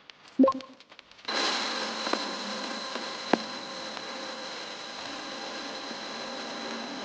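A short metallic clink, then about a second later a handheld fiber laser welder starts up and runs with a steady hiss and a faint high whine, with one sharp tick partway through.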